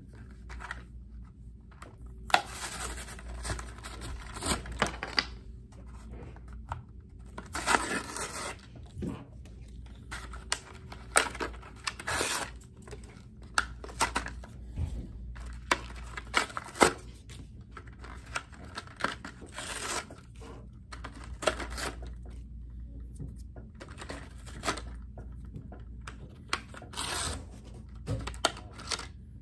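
Cardboard-backed plastic blister pack of a die-cast toy truck being torn open and handled: irregular rips, crinkles and sharp clicks, with a few longer stretches of tearing.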